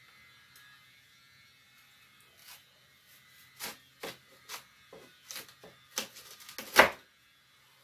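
Knife cutting through a crisp raw fennel bulb on a wooden cutting board: a run of short crunches and snaps that come faster and louder, with the loudest crack near the end.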